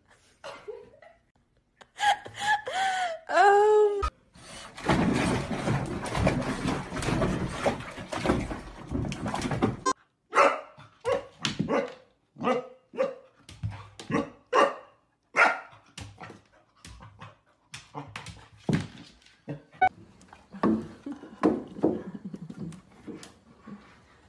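Dog whining with a few cries that rise and fall in pitch, then, after a stretch of rustling noise, barking and yipping in a long string of short barks, about one or two a second.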